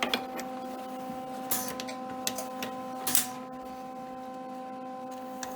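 Wire-feed welder at work: a steady electrical hum with irregular crackles and pops from the arc, strongest in two short bursts about a second and a half and three seconds in.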